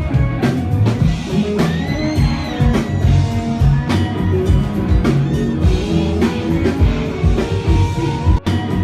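Pop-rock song with a steady drum-kit beat and guitar, and a singing voice gliding through a few held notes. The track briefly cuts out for an instant near the end.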